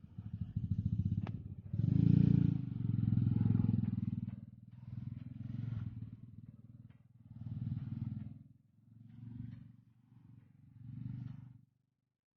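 A small engine, sounding like a motorcycle, revving in repeated swells that grow weaker and stop shortly before the end.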